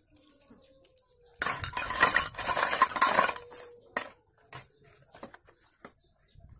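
Slate pencils clattering into a stainless steel bowl as a handful is dropped in: a dense rattle lasting about two seconds, starting about a second and a half in, followed by a sharp click and a few scattered light clicks.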